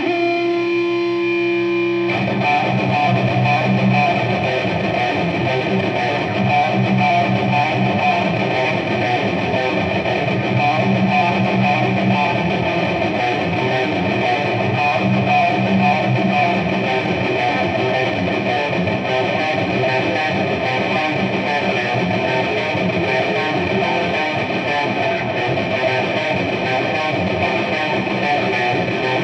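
Distorted electric guitar played through a Marshall amplifier in a fast death metal style. A single held note rings for about the first two seconds, then gives way to dense, fast playing high up the neck.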